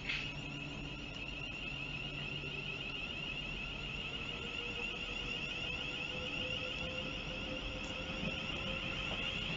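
Continuous high-pitched, wavering wheel squeal from a London Northwestern Railway Class 350 Desiro electric multiple unit running slowly through the station pointwork, with a brief clack right at the start. Under it, a fainter electric motor whine rises slowly through the second half as the train picks up speed.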